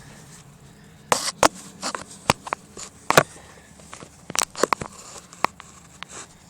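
Irregular clicks, knocks and short scrapes of a handheld phone being moved and propped against things.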